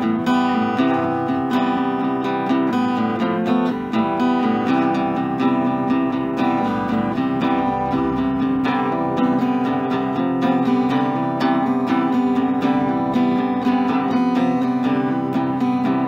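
Solo acoustic guitar playing an informal jam, chords sounding in a steady rhythm.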